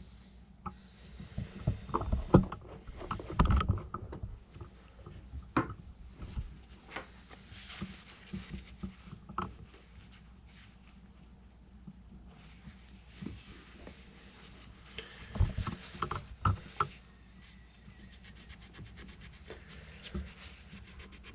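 Paper towel rubbing and wiping ink off a stippled horn surface, with irregular knocks and taps from handling the horn and the ink bottle, loudest about two to four seconds in and again near the end.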